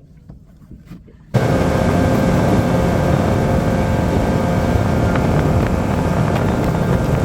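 Loud, steady engine running. It starts suddenly about a second in and holds an even pitch and level, with a heavy low rumble.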